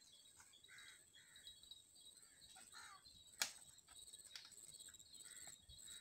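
Quiet outdoor ambience: a few faint, short bird calls and a faint steady high-pitched buzz, with one sharp click about halfway through.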